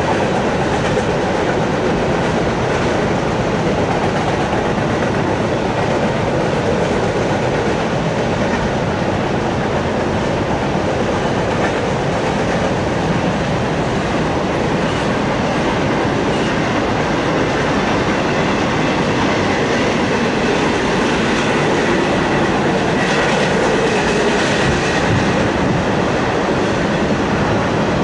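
Double-stack intermodal freight train's well cars rolling past at steady speed: continuous rumble and clatter of steel wheels over the rails. A faint high wheel squeal joins near the end.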